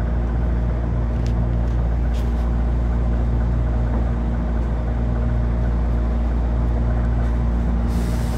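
City transit bus running with a steady engine and drivetrain drone and a constant low hum, heard from on board.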